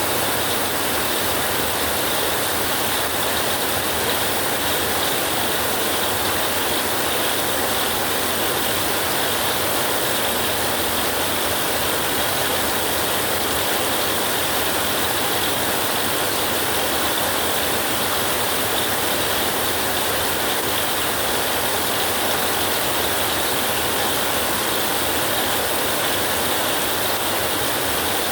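Steady rain, a constant even wash of noise with no thunder.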